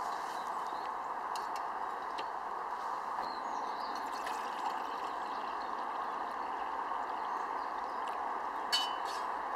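Wood fire burning in a small steel stick stove, with a few soft crackles over a steady rushing background, and one sharp metallic clink near the end.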